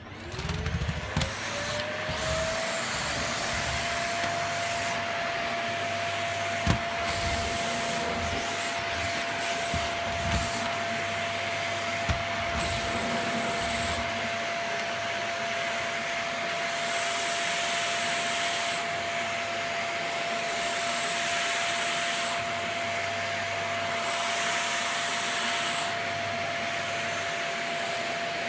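Vacuum cleaner just switched on: its motor whine rises in pitch over the first few seconds, then runs at a steady pitch with a rushing hiss. There are a couple of sharp knocks early on, and the hiss swells and fades every few seconds later.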